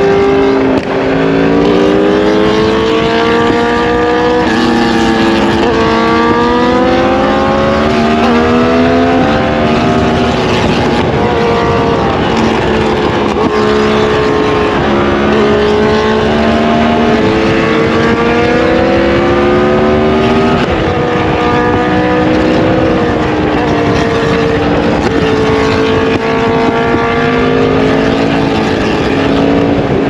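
2023 Yamaha MT-10's crossplane inline-four engine running under way, heard from on the bike: its note climbs in pitch under throttle, drops sharply at gear changes a few times, and holds steady between climbs.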